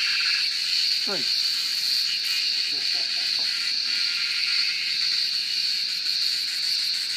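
Cicadas singing: a steady, high, continuous drone.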